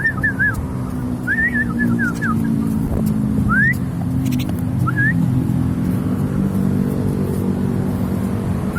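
Vehicle engine running steadily with a low rumble. Over it come short, clear whistled chirps: a quick flurry in the first couple of seconds, then single notes a few seconds apart.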